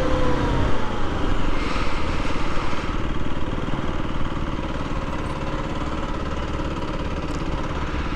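Aprilia RS 125's single-cylinder four-stroke engine idling steadily, with a falling tone in about the first second.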